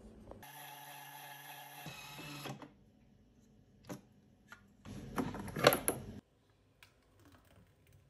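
Electric blender motor running with a steady hum for about a second and a half, then winding down and stopping. A couple of clicks follow, then a louder, rough burst of noise lasting just over a second.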